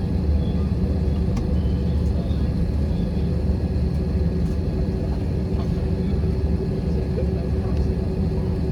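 Steady low rumble of an airliner cabin in flight: engine and airflow noise with a constant hum over it.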